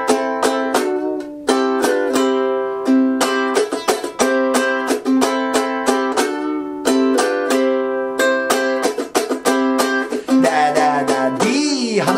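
Ukulele strumming a rock riff slowly through the chords Am, Am, D, G7 and C, with short percussive muted strokes between the chords. Near the end there are bent, sliding notes.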